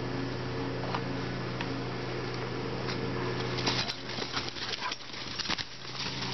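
Dogs' paws rustling and crunching through dry leaf litter as they chase each other, with a flurry of crackling leaves about four to five seconds in. A steady low hum runs underneath and drops out briefly during the flurry.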